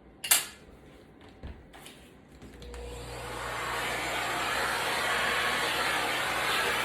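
A sharp click, then an electric blower motor starts up about three seconds in and runs with a steady rushing hiss over a low hum.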